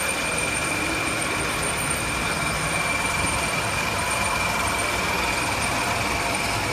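Shrink sleeve labeling machine running steadily, its motors and feed rollers making an even mechanical noise with a steady high-pitched whine.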